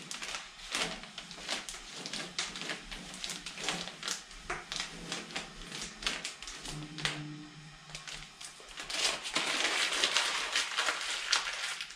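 Transfer tape being peeled off vinyl sticker lettering on a car's painted fender, the paper crackling and ticking as it comes away. Near the end the peeled tape is crumpled up by hand, a louder, denser rustling.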